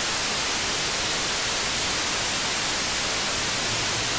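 Steady hiss of analogue TV static, the white-noise snow of an untuned television, used as a transition effect. A faint low hum comes in under it near the end.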